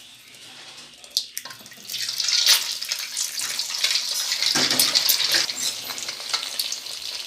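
Eggs dropped into hot oil in a karahi, sizzling loudly from about two seconds in, after a few sharp taps.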